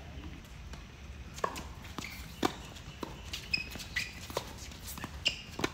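Tennis ball and players on a hard court during a doubles point: a run of sharp knocks from the ball bouncing and being struck with rackets, about two a second, with footsteps between them.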